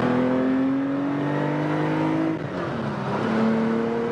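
1979 Porsche 911 SC's air-cooled 3.0-litre flat-six accelerating hard, its pitch climbing; about two and a half seconds in it briefly eases off for an upshift, drops in pitch and climbs again in the next gear. Heard from inside the car.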